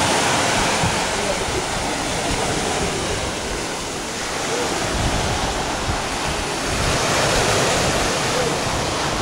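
Ocean surf breaking and washing up the beach, a steady rush that swells near the start and again about seven seconds in.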